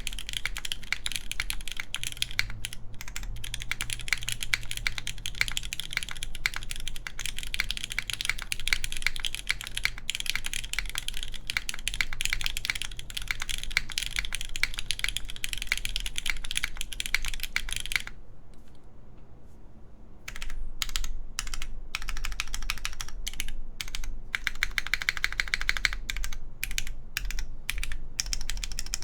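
Mechanical keyboard with lubed Cherry MX Black linear switches, GMK keycaps and a full aluminium plate, typed on fast and continuously, with a slightly boomy sound. A little past halfway the typing thins to a few scattered keystrokes for about two seconds, then resumes at full pace.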